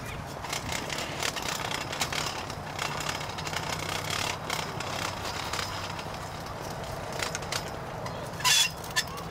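A vehicle engine running with a steady low hum, under scattered light clicks from footsteps and handling. A short loud rustle comes near the end.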